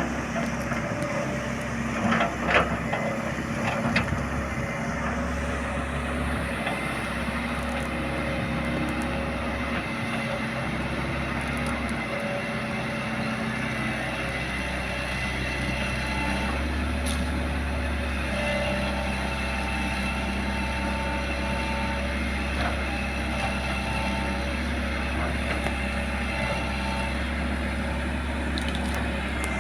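Excavator running steadily, its engine note shifting in steps, with a few sharp knocks about two to four seconds in.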